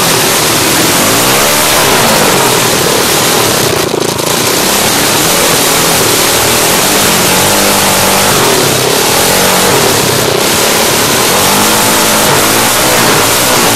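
Dirt bike engine running loud and revving up and down as the bike is ridden, recorded close up by a phone taped to the handlebars. The engine sound drops briefly about four seconds in.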